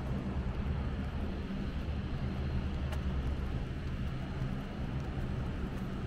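Steady low rumble of outdoor background noise, heaviest in the bass, with no distinct events.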